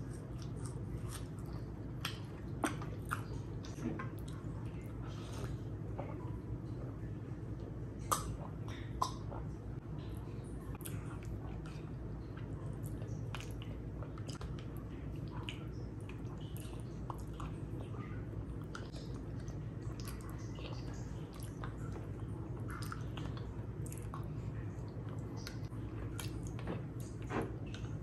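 Close-miked chewing of a mouthful of rice and curry: wet mouth sounds with scattered short clicks over a steady low hum.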